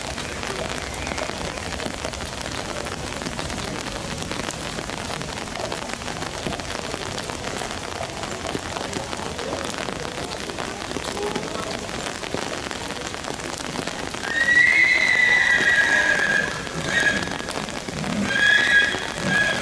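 Steady hiss of rain falling on wet ground. About fourteen seconds in, a horse whinnies loudly for about two seconds, its call falling slightly in pitch, and gives shorter whinnies near the end.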